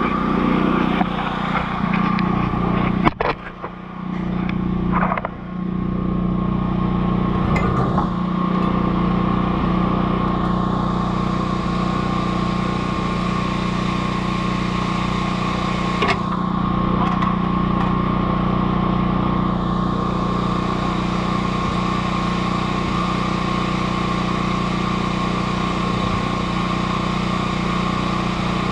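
A steady machine drone, like a motor running, with a few sharp knocks about three to five seconds in.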